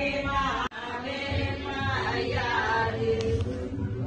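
Voices chanting in a sung, droning recitation with long held notes, typical of a Hindu wedding ritual; the sound drops out for an instant less than a second in.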